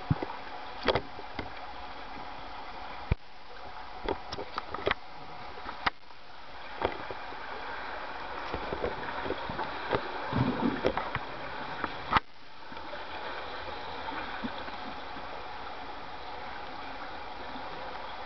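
Underwater pool ambience picked up by a submerged camera: a steady rushing hiss of water, with scattered sharp clicks and knocks and a stretch of gurgling bubbles about ten seconds in.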